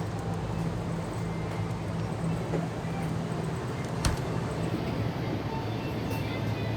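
Steady low hum and rumble of a moving vehicle, with one sharp click about four seconds in.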